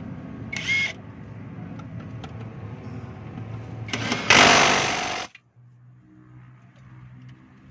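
Power impact wrench on a long socket extension: a brief spin-up under a second in, then about a second of running on a bolt that stops sharply.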